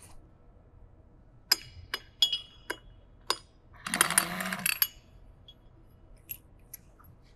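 Five sharp metallic clinks of a steel socket and extension knocking against the nut and the steel air cylinder, then a burst of under a second from an air impact wrench spinning off the nut inside the drawbar activator. A couple of faint ticks follow.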